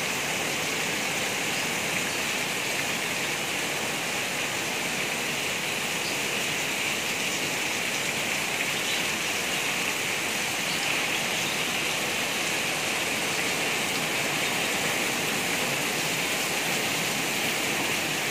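Heavy rain pouring steadily onto a garden's lawn and leaves and a veranda roof: a dense, even hiss that does not let up.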